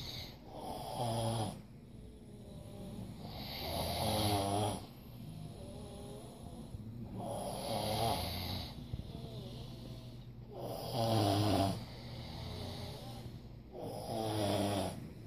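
Heavy snoring: five loud, rasping snores about three seconds apart, each with a wavering pitch, and quieter breaths out between them.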